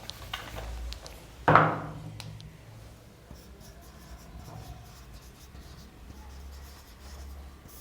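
Pen or marker scratching as someone writes by hand. A short, louder sound from the voice comes about a second and a half in.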